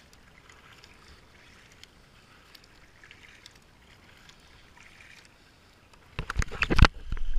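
Kayak paddle dipping into flat river water, soft swishes every second or so. About six seconds in, a run of loud knocks and rubbing as a hand handles the helmet camera, the loudest sound here.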